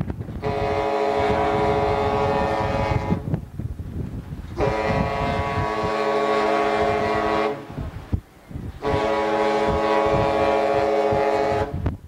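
Cruise ship's horn sounding three long blasts of about three seconds each, with short pauses between. Each blast is held at one steady pitch over a low rumbling background.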